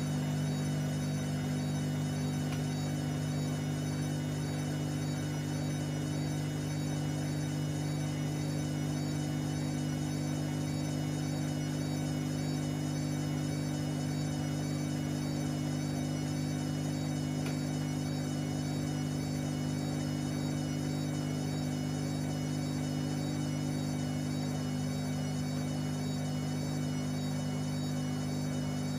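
Whirlpool AWM 864 Aquaprogramm washing machine running with a steady electric motor hum that does not change.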